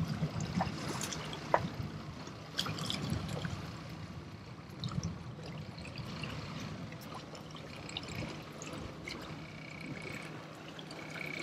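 Water splashing and trickling against a boat's hull, irregular and uneven, over a faint low steady hum.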